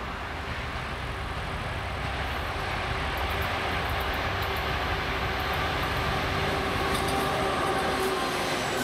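TEP70 diesel passenger locomotive approaching and drawing level, its 16-cylinder diesel engine rumbling and growing steadily louder. A steady hum strengthens in the second half, and sharp clicks of the wheels on the rails start about two seconds in.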